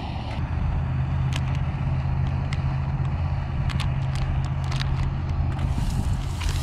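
MSR Pocket Rocket canister stove burning with a steady low rumble under a camp pot, with a few light clicks of handling. Near the end a hiss rises as a pat of butter drops into the hot pot and starts to sizzle.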